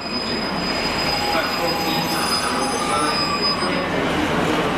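Freight train of empty container flat wagons rolling slowly past, the wheels squealing on the rails in a thin high whine that stops near the end over the steady rumble of the wagons.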